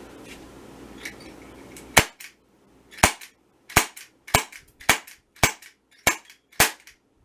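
Sig Sauer SP2022 CO2 BB pistol firing eight sharp shots in a row, one about every half second to second, starting about two seconds in.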